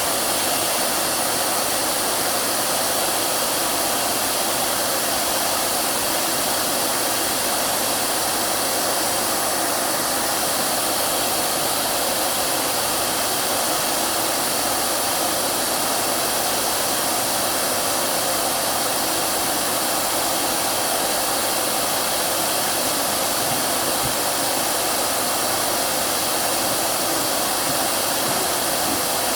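Hair dryer running steadily, a constant even rushing hiss with no change in pitch or level, used as white noise to soothe a crying baby.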